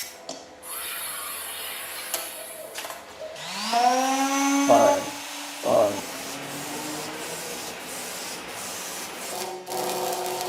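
Hand-held circular saw whining up to speed about three seconds in, then running with a steady rasping noise as it cuts wood or sheet material, with a couple of dull knocks along the way.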